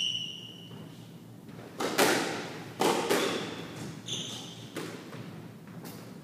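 Squash rally: the ball cracks off rackets and the court walls, about half a dozen sharp echoing hits, with a shoe squeak on the wooden floor at the start and another about four seconds in.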